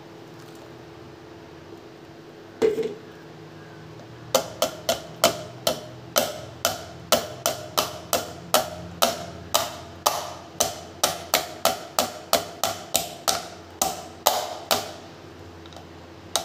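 A plastic strainer full of sweet lime juice and pulp knocking against a steel bowl, each knock ringing briefly: one knock, then a steady run of about two a second for some ten seconds as the juice is worked through the mesh.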